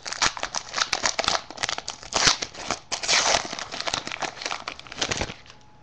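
Foil trading-card pack wrapper crinkling as it is torn open and crumpled by hand, a dense run of crackles that stops about five seconds in.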